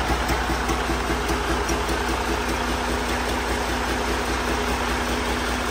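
Detroit Diesel DD15 14.8-litre inline-six diesel engine running at a steady idle, throttle closed.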